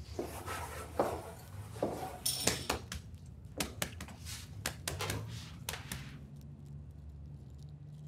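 Handling noises at a kitchen counter: a run of sharp taps, clicks and rubbing as a hard-boiled egg's shell is cracked and peeled and a bar stool is pulled out, with the loudest knocks about one and two and a half seconds in, thinning out after about six seconds.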